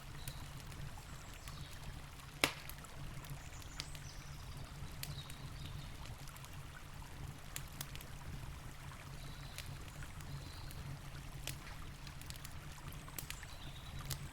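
Campfire crackling with scattered sharp pops, one loud pop about two and a half seconds in, over the steady low rush of a flowing river.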